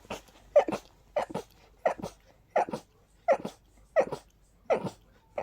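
A person sneezing in a rapid, breathless series, about eight sneezes at roughly three every two seconds, each a short voiced catch followed by a sharp burst. It is an allergy attack set off by high sensitivity to pollen and dust.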